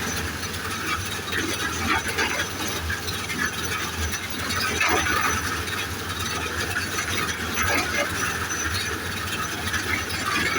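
Construction machinery running steadily during a concrete pour: a continuous hiss over a low rumble, with irregular knocks and clatters.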